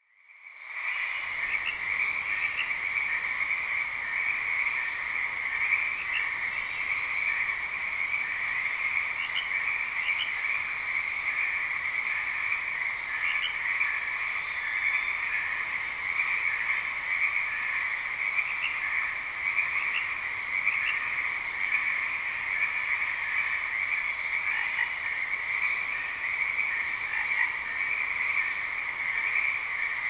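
Night-time ambient soundscape of an Apple Vision Pro environment: a dense, steady chorus of frogs, fading in over the first second and then holding even throughout.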